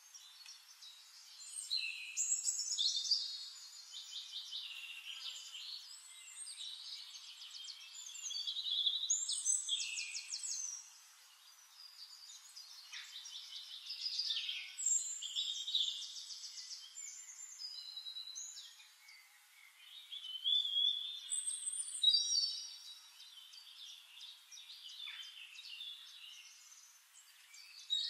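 Several songbirds singing at once: overlapping chirps and rapid trilled phrases, swelling louder every few seconds.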